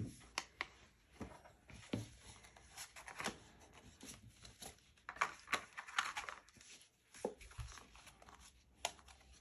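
Tarot cards and their cardboard box being handled: the box flap opened and the deck slid out, with faint scattered taps, card clicks and rustles.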